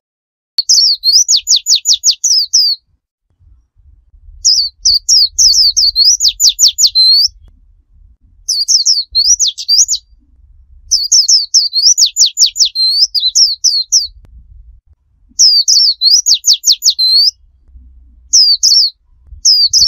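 White-eye (pleci) singing its rapid 'tembakan' song: bursts of quick, high, sharply sweeping notes, each lasting two to three seconds, six times over with short pauses between.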